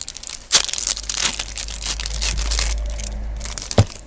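Crinkling and tearing of a trading-card pack wrapper being handled and opened, with a sharp knock near the end.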